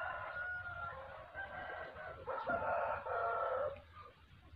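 Rooster crowing in the background, two long crows, the second louder and starting about two seconds in.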